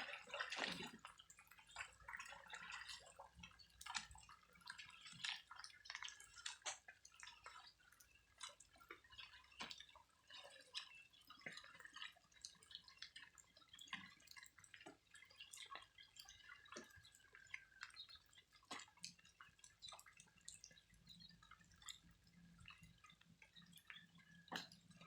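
Faint, irregular water drips and small clicks over near silence.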